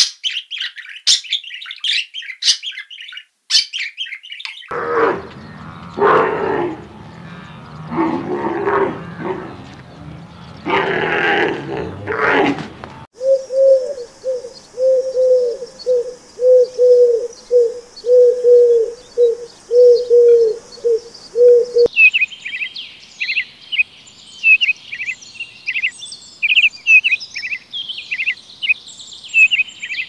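Bird calls in several short segments. First a budgerigar chirping, then several loud, longer lower calls, then a low call repeated evenly a little more than once a second, and finally rapid high chirping.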